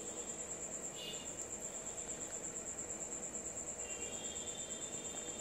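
A cricket chirping in a fast, even, high-pitched trill that never stops.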